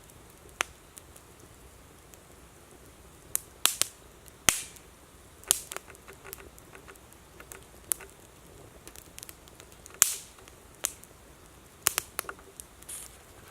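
Wood campfire crackling: irregular sharp pops and snaps, a few of them loud and trailing into a short hiss, the loudest about ten seconds in.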